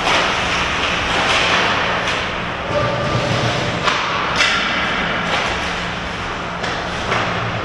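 Ice hockey play: skate blades scraping and carving on the ice, with several sharp knocks and thuds from sticks and puck scattered through, over a steady low hum.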